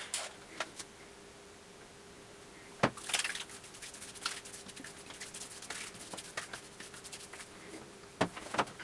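Small glass aftershave bottle being handled with light clicks, and a sharp knock about three seconds in. Straight after comes a quick run of soft pats as aftershave is splashed into the hand and patted onto the face, with a few more clicks near the end.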